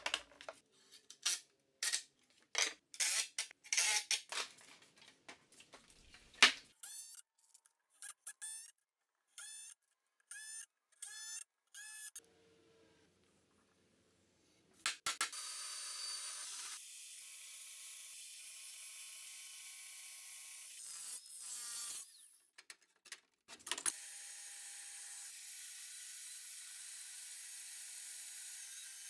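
Knocks and clatter of heavy wooden stair boards being handled, then a cordless power driver in a run of short bursts. For most of the second half a vertical bandsaw runs steadily, cutting steel plate, with a brief break in the middle.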